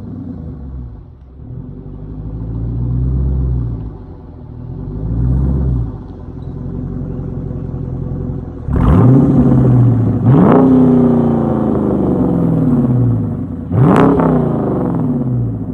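Dodge Charger Daytona's Hemi V8 through Jones Turbine JR20 dual exhaust. Two softer rises in revs are followed by three sharp revs, each jumping up quickly and dropping back slowly.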